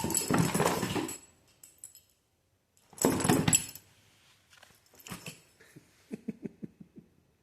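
A cat scrambling after a toy: two short bursts of scuffling and scrabbling, then a quick run of light taps from paws and claws on the floor.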